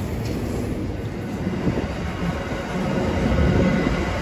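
Freight train wagons rolling past close by: a steady rumble of steel wheels on the rails, growing louder about three seconds in.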